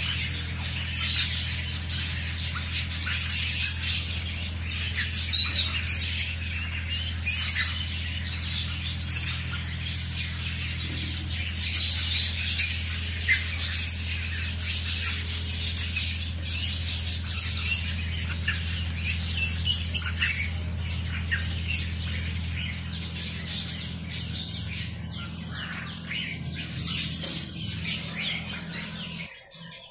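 Half-grown ducklings and a chick peeping and squawking in many quick high calls, over a steady low hum that cuts off near the end.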